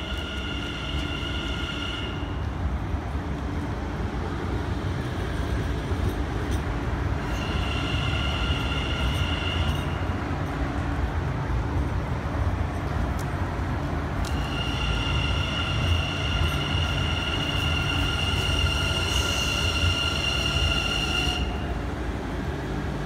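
Sprinter New Generation (SNG) electric multiple unit running into the station: a steady low rumble of wheels on the track, growing louder as the train comes alongside, with a high steady squeal that comes and goes three times, the longest stretch running from past the middle to near the end.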